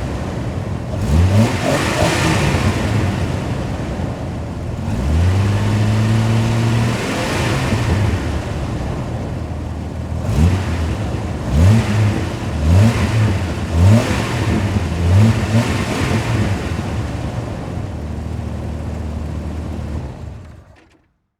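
Car engine revving in a series of short rising sweeps, holding steady in between, then fading out near the end.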